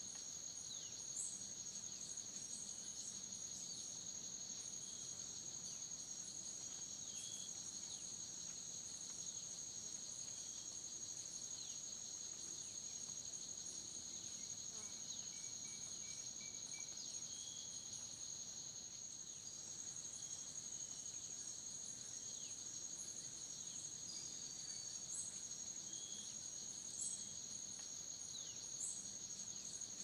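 Rainforest insects trilling steadily in two high, unbroken tones, with brief high chirps and short falling whistles scattered over them.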